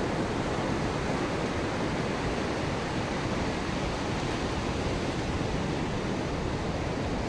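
Steady rush of ocean surf breaking on a sandy beach, an even, unbroken noise.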